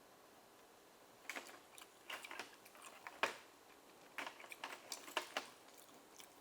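Steamed oyster shells clicking and clattering against each other: a dozen or so short, sharp taps in irregular clusters.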